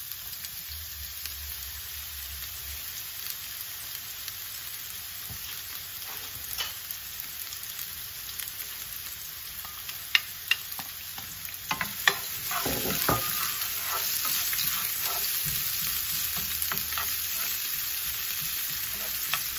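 Chopped red onion sizzling in hot olive oil in a frying pan. A few sharp knocks come about ten to twelve seconds in, and the sizzle is louder after that.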